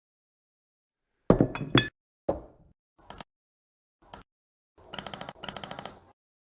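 Clinking and knocking sound effects: a quick cluster of sharp clinks (the loudest part), then a single knock that rings out briefly and a few short clicks. Near the end comes a fast rattling run of small clinks in two bursts, lasting about a second and a half.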